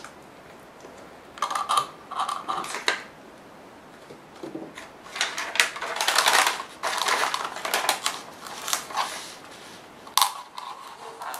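Metallic shred and a clear plastic cup crinkling and crackling as they are handled, in two stretches of irregular crackles with one sharp click near the end.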